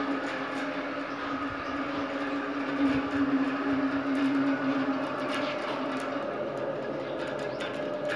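A machine motor running with a steady, even hum, with a few light clicks over it.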